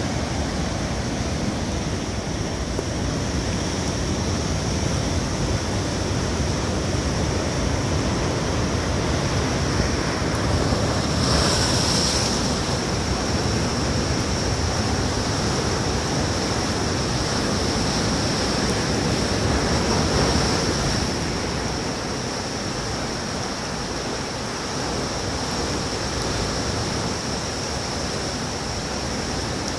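Rough sea: heavy surf breaking and foaming in a continuous rush, swelling louder twice, about eleven seconds in and again around twenty seconds.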